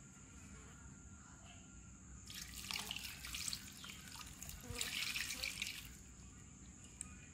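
Coconut milk poured onto pumpkin pieces in a clay pot, splashing and trickling in two pours of about a second and a half each, the first starting a little over two seconds in.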